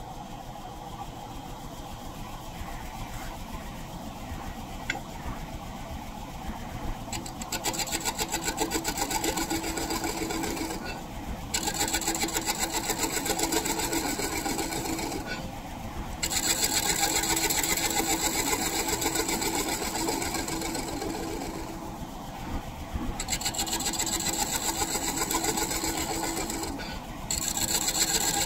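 Wood lathe spinning a 33-inch maple disc, and from about seven seconds in a large scraper cutting its face with a fast, even scraping chatter. The cut comes in passes, broken four times by short pauses where the tool leaves the wood.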